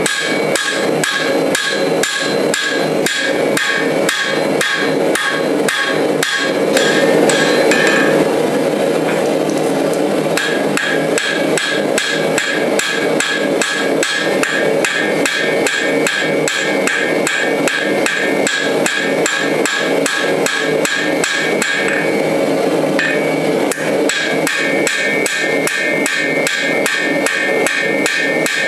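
Hand hammer striking a red-hot steel dagger blade on an anvil in a steady rhythm of about three blows a second, each blow ringing off the anvil. The high ring fades twice for a couple of seconds while the blows go on.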